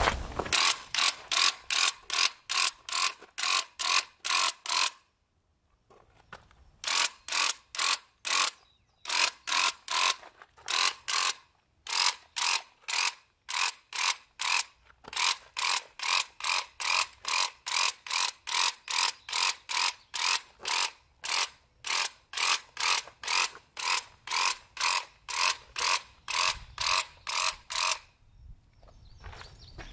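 Handheld electric paint sprayer running while spraying paint, a fast regular clatter of about three pulses a second. It breaks off for a couple of seconds about five seconds in, pauses briefly a few more times, and stops near the end.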